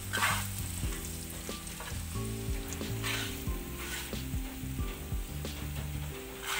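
Food sizzling in a wok while a wooden spatula stirs and scrapes through it, with a few sharper scrapes against the pan.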